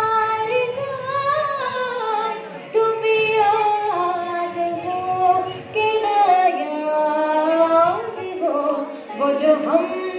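A girl singing an Urdu ghazal solo into a microphone, with long held notes that bend and glide between pitches and short breaks between phrases.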